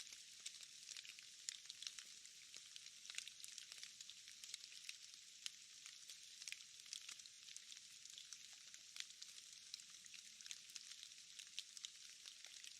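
Faint, steady rain falling on leaves: an even hiss dotted with many small ticks of drops striking foliage.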